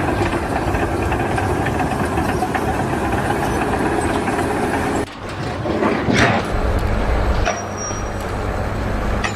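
Heavy engine running with a steady low rumble, typical of a truck or construction machine; the sound changes abruptly about five seconds in and settles into a steadier low hum.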